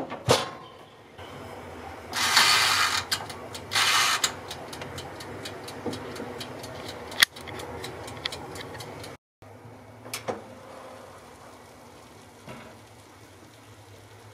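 Countertop toaster oven: its door shuts with a couple of knocks, then come two loud rasping bursts and a run of fast, even mechanical ticking, typical of a wind-up oven timer being set and running, over the steady low hum of the oven.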